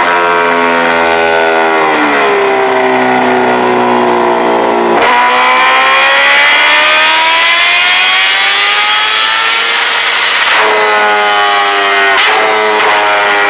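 Kawasaki Ninja H2R's supercharged inline-four running hard on a roller dyno, its rear wheel driving the roller. The engine note holds, dips a couple of seconds in, then breaks sharply about five seconds in. It climbs steadily for about five seconds, then breaks again twice near the end.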